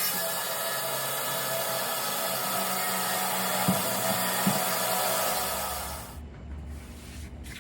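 Bandsaw with a 3/4-inch blade cutting through a dogwood log: a steady whining rasp with two light knocks near the middle. About six seconds in the cutting stops and only a lower hum is left.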